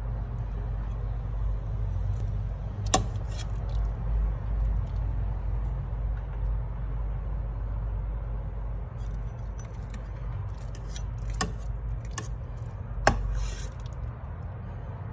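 Metal ladle scooping broth over fish in a cooking pot, with four sharp clinks of the ladle against the pot, the loudest about three seconds in and near the end, and light clatter between them. A steady low hum and hiss runs underneath.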